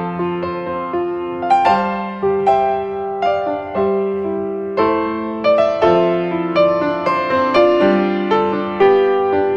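Background piano music: single notes and chords struck at a slow, even pace, each ringing out and fading.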